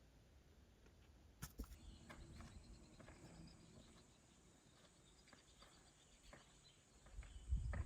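Near silence: faint outdoor quiet with a sharp click about a second and a half in, and a low rumble near the end.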